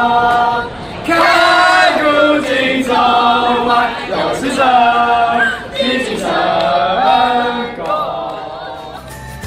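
A group of young men and women singing together in unison, phrase after phrase of held notes, fading out near the end.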